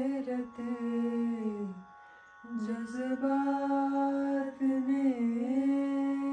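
A singer's voice holding long, slightly wavering notes of an Urdu ghazal, with a short break about two seconds in, over a faint steady drone.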